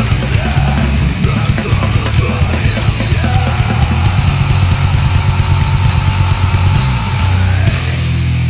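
Grindcore metal band playing fast and loud, with distorted guitars and drums. A long held high note sounds from about three seconds in until shortly before the end.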